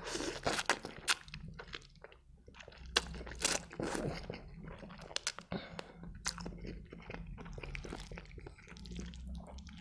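A man eating noodles with chopsticks, with close-up mouth sounds. He slurps mouthfuls in near the start and again about four seconds in. Between them come wet chewing and smacking clicks.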